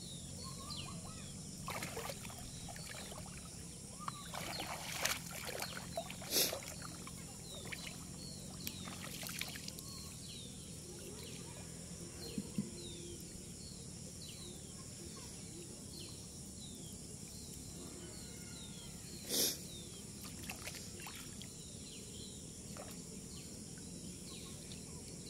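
Shallow water sloshing and splashing as a man wades and handles a cast net, with a few sharper splashes. Small birds chirp repeatedly in the background.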